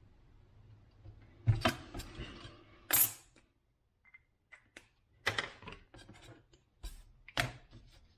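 Small objects being handled on a workbench: a series of sharp knocks and clicks, with one brief scraping stroke about three seconds in.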